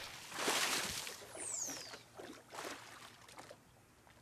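Sound-design water splashes and whooshes, several surges with a falling whistle-like sweep partway through, dying away toward the end.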